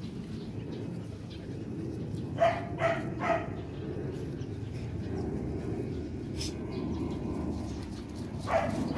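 Rottweiler puppy barking: three quick barks about two and a half seconds in, then one more near the end.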